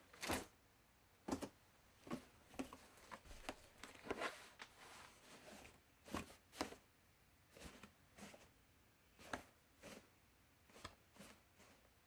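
Laundry basket and clothes being handled: a string of short, irregular rustling and brushing sounds, about one or two a second, some sharper than others.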